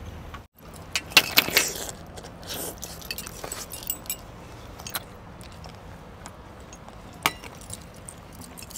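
Eating by hand from a thali: quiet chewing and mouth sounds, with scattered sharp clicks and light clinks of metal on steel dishes. The loudest of these come in a cluster about a second in, with a single sharp click near the end.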